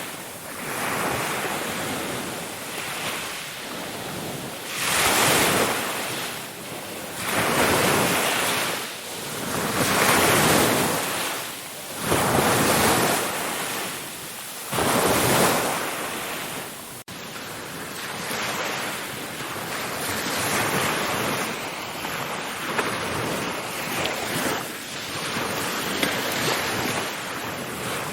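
Ocean surf: waves washing in and breaking in swells every two to three seconds. About two-thirds of the way through, the sound cuts abruptly to a steadier wash with softer, less distinct swells.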